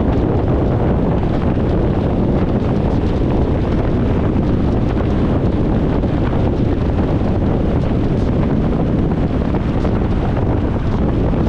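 Steady road noise of a car ride heard from inside the cabin: an even low rumble with hiss, unchanging throughout.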